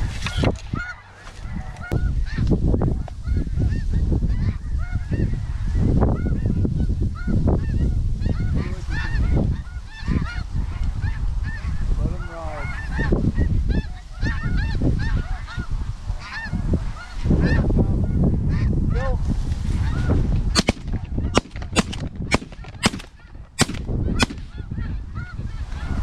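A flock of snow geese calls constantly, with many short, high honks, over a heavy rumble of gusting wind on the microphone. From about twenty seconds in, shotguns fire a rapid string of roughly eight shots over about four seconds.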